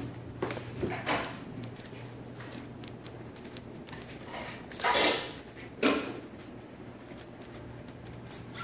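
A 10-week-old baby's short, breathy vocal noises: a few separate squeaky grunts, the loudest about five seconds in.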